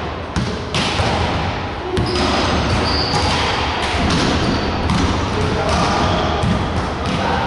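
Volleyball thuds in a large gym hall: the ball bounced and handled, then struck on a serve, with several sharp knocks over a steady background of hall noise.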